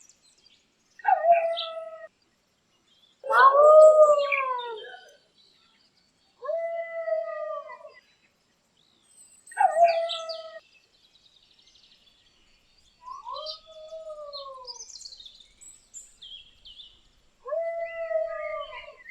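A dog moaning in a series of six drawn-out calls, each a second or two long with gaps between. Some rise and then fall in pitch; the second call, about three seconds in, is the loudest. Faint bird chirps sound between the calls.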